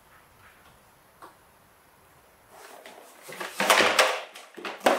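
Plastic toy dump truck clattering and scraping against a wooden floor as it is handled, after one small click. The clatter starts about two and a half seconds in, with a second, shorter loud burst near the end.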